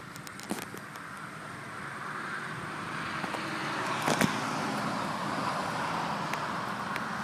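Road traffic noise: a vehicle passing, its tyre and engine noise swelling over the first few seconds and then holding steady, with a sharp knock about four seconds in.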